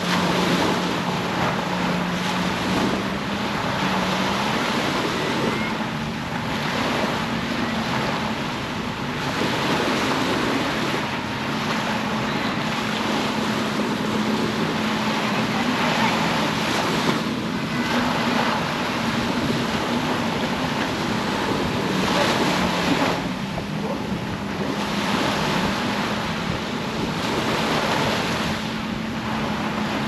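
Sea surf washing onto a beach, swelling every several seconds as waves break, with the steady low hum of an engine running underneath.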